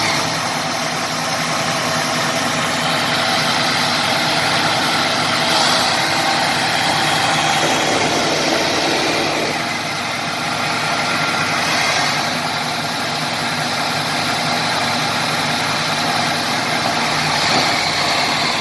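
Diesel engines of two D70LE crawler bulldozers running steadily under load as they pull a very large log together.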